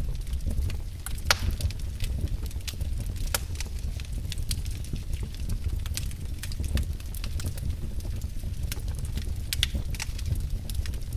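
Wood fire burning in a fireplace: a steady low rumble with frequent irregular sharp crackles and pops.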